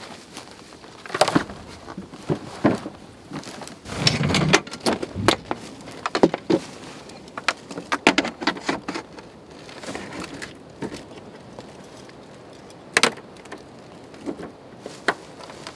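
Scattered knocks, clunks and clicks of camp gear being handled: a plastic cooler box set down, then a fold-down side table on a Land Rover Defender swung open and its straps hooked up, with one sharp click near the end.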